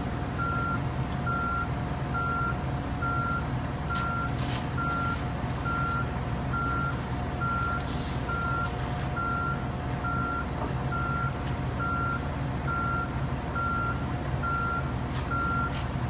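Backup alarm of heavy construction equipment beeping steadily at one pitch, about one beep a second, over diesel engines running.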